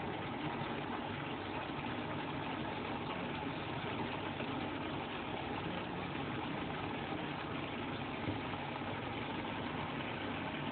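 Setas de cardo (king oyster mushrooms) simmering in their own released liquid and olive oil in a frying pan: a steady bubbling sizzle as the liquid boils off and reduces, the sign that the mushrooms are nearly done.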